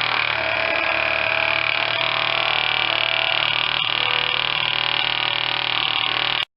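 Small toy steam engine of a Bowman Eagle model steam boat running at a steady fast beat, with a busy mechanical chatter. It cuts off suddenly near the end.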